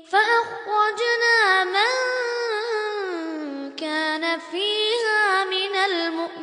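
A young boy's high voice reciting the Quran in a melodic tajweed style, the pitch rising and falling in long glides. There is a short break for breath just before four seconds in.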